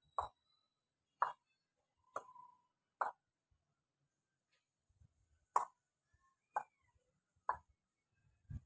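Ear-cracking massage: seven sharp pops from the masseur's hands on the ear, about one a second with a pause of some two and a half seconds in the middle, then a soft low thump at the very end.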